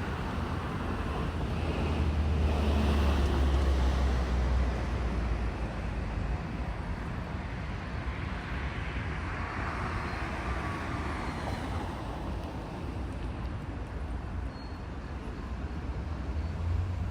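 Freight train hauled by a DF200 diesel-electric locomotive pulling out and rolling past, a steady rumble with a low drone that is loudest a few seconds in and then slowly eases off.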